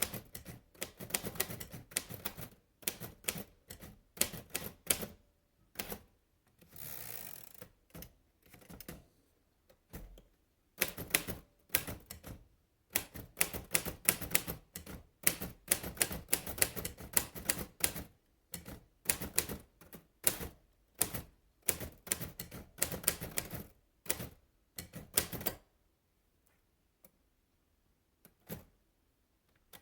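Royal De Luxe Model A portable typewriter being typed on: typebars striking the platen in quick runs of clicks with short pauses between. About seven seconds in there is a brief rushing sound, and near the end the keys fall mostly quiet with a few faint ticks.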